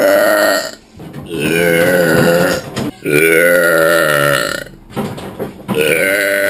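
A person belching on purpose in a string of loud, long burps, each lasting about a second and a half, with short pauses between them. One trails off near the start, two more follow, and another begins near the end.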